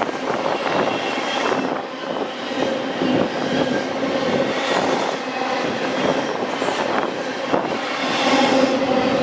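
Intermodal freight train of double-stacked container cars rolling past: a steady rumble of wheels on rail, with repeated clacks as the wheels cross rail joints.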